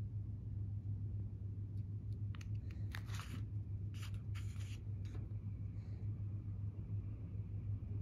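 Paper booklet pages handled and rustling, a cluster of short crackles about two to five seconds in, over a steady low hum.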